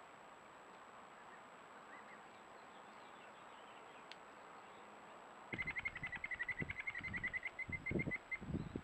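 A bird's rapid chattering call, a fast run of short notes, about ten a second, lasting close to three seconds, with low knocks and scuffing beneath it. Before it there is only faint outdoor background and a single sharp click.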